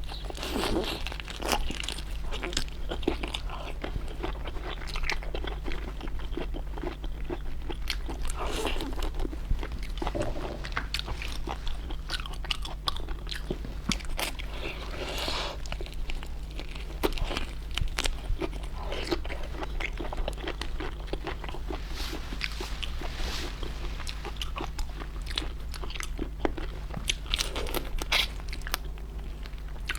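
Close-up crunching and chewing of stuffed prawns, with many small crackling bites and wet mouth sounds in an irregular run, over a steady low hum.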